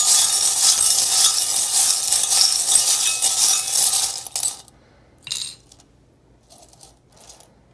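Loose metal charms stirred and rattled by hand in a ceramic bowl, a loud continuous jingling clatter that stops about four and a half seconds in. A short rattle follows about a second later, then a few faint clinks near the end.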